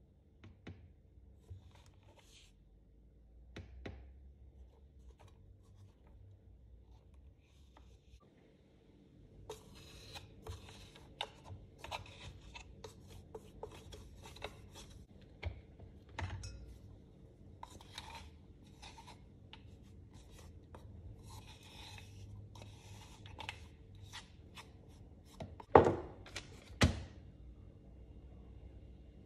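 Wooden spoon scraping and stirring ground nuts inside a stainless steel grinder jar, a long run of quick scrapes and light taps against the metal, followed near the end by two loud sharp knocks about a second apart.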